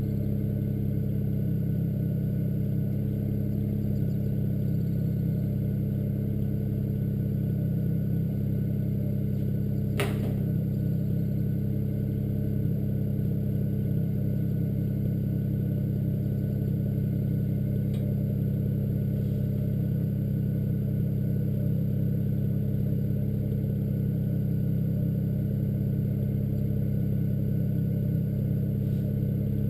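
BMW 335i turbocharged straight-six idling steadily through catless downpipes, a low, even exhaust drone with no revving. One sharp click about ten seconds in.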